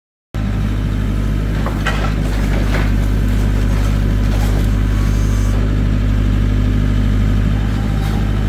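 Engine running steadily, cutting in suddenly after a moment of silence, with a few faint knocks about two seconds in, as firewood is loaded onto a truck.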